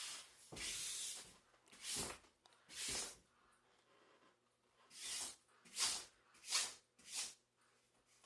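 Palm sweeping over a printed vinyl door sticker, making a run of soft swishes as it smooths the material down and pushes air bubbles out. The swishes come quicker, about one every 0.7 seconds, in the second half.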